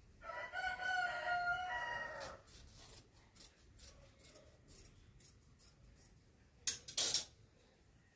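A rooster crows once, a pitched call lasting about two seconds. Then scissors snip through thin cloth in a quick, irregular run of cuts, followed by two louder rustling swishes of the cloth about seven seconds in.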